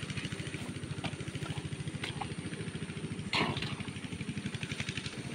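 A small engine running steadily at an even, fast pulse, with the short sound of a spade cutting into wet soil about three and a half seconds in.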